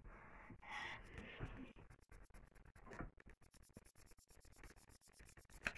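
Faint pencil scratching on paper as hair is shaded in, strongest in the first two seconds and then lighter, with one sharp click near the end.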